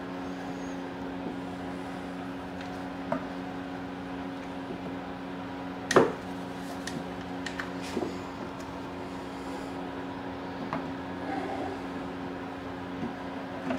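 Scattered clicks and knocks of a 2011 Acura MDX's plastic air filter housing cover being handled and pried open, with one sharper knock about six seconds in, over a steady low hum.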